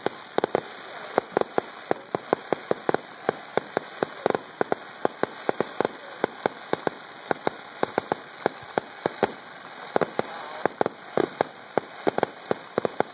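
Fireworks popping and crackling: a dense, irregular string of sharp pops, several a second, that keeps going without a break.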